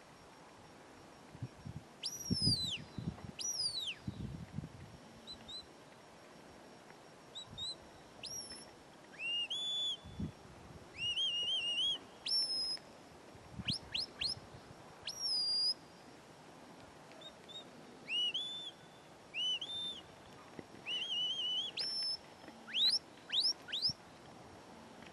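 A handler's shepherd's whistle giving commands to a working sheepdog: a dozen or so short, shrill whistle phrases, some sliding down, some rising and then held, with a run of quick rising notes near the end.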